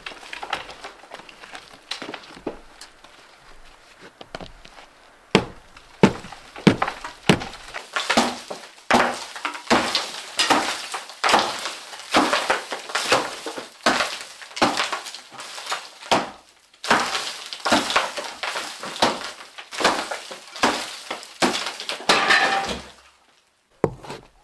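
A few separate knocks, then a steady run of scraping or rasping strokes, about one and a half a second, stopping shortly before the end.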